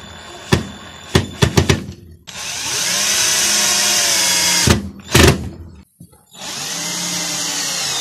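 Cordless drill-driver driving screws through a curved PVC leg piece into a PVC pipe: two runs of the motor a couple of seconds each, the pitch of the first sagging as the screw pulls tight. Clicks and knocks of the bit and the parts being handled come before and between the runs.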